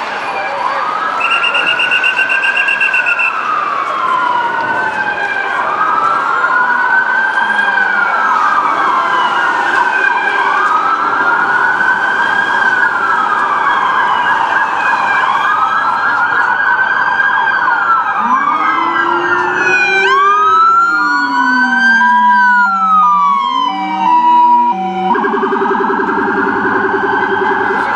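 New York ambulance sirens wailing, each rising and falling over a couple of seconds again and again. From about twenty seconds in a second siren overlaps, and a low-pitched Rumbler siren sweeps up and down far below the main wail.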